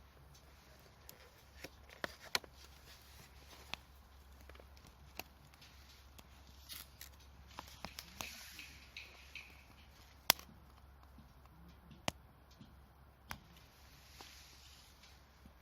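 Wood campfire crackling: irregular sharp pops from the burning wood, a dozen or so, the loudest about ten seconds in, over a faint hiss.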